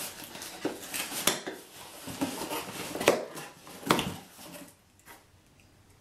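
A cardboard package being opened with an X-Acto knife: scraping and rustling with several sharp clicks and knocks, going quiet for the last second or so.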